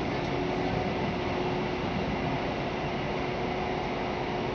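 Running noise of a passenger train heard from inside the coach: a steady rumble from the wheels and track, with a faint constant hum.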